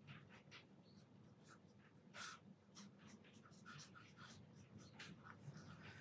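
Faint, quick scratchy strokes of a tool working on smooth hot-pressed watercolour paper, a few a second at an uneven pace, one a little louder about two seconds in.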